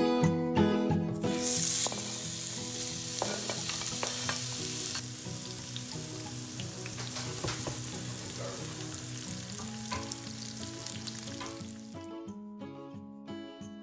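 Sliced onion sizzling in hot bacon fat in a stainless steel skillet: a burst of sizzling about a second in as the onion goes into the fat, then a steady sizzle with a spatula stirring, fading near the end. Background music plays underneath.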